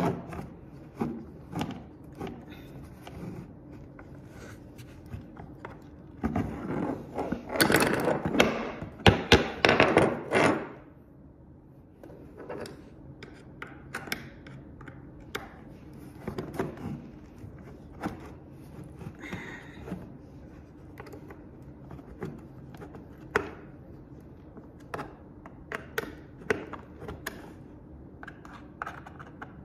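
Hand assembly of a dumbbell rack with a Phillips screwdriver: scattered clicks and knocks of the screwdriver and rack parts, with a louder stretch of knocking and scraping about a third of the way in.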